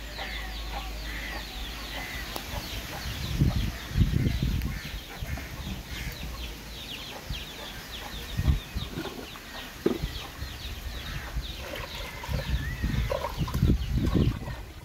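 Chickens clucking, with many short, high chirps running throughout and a few low rumbling bursts.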